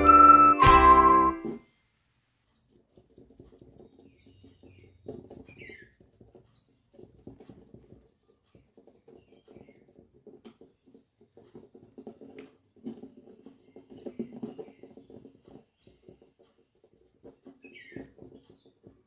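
Background music that stops about a second and a half in, then faint, irregular dabbing and rubbing as a sponge pats paint onto a glass bottle. A few short bird chirps come through, twice with a falling pitch.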